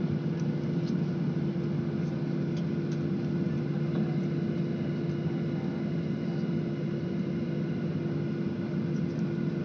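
Steady drone of a jet airliner's engines heard inside the passenger cabin while the plane taxis, an even rumble with a constant low hum.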